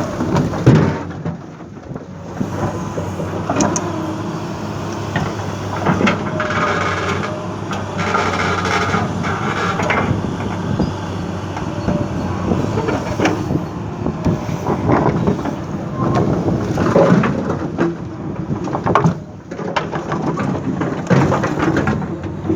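Komatsu 220 excavator's diesel engine running steadily under load, with scattered knocks and clanks as it loads soil into a dump truck, and a higher whine rising for a few seconds near the middle.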